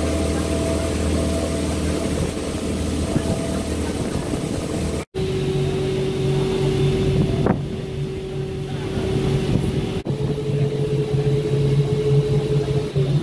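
Water taxi's inboard engine droning steadily while the boat cruises, heard from aboard. The sound cuts out for an instant about five seconds in, then the drone resumes at a slightly different, steady pitch.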